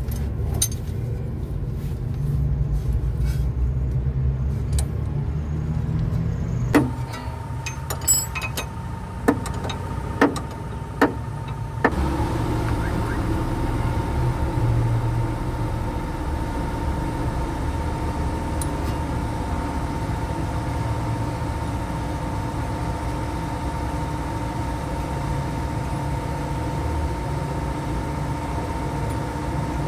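A wrench on a socket extension clinking against a car's suspension bolts, with six or so sharp metallic clicks between about seven and twelve seconds in. A steady low hum runs throughout, and a steady thin whine joins it from about twelve seconds on.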